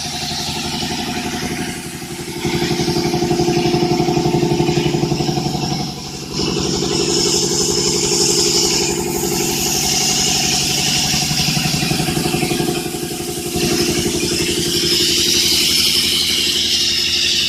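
An engine-driven air compressor running steadily, with a high hiss over it. The level dips briefly a few times.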